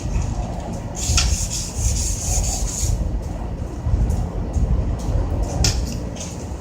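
Rubbing and scraping strokes on a water heater's surface, the longest running about a second to three seconds in and a short sharp one near the end, over a steady low rumble.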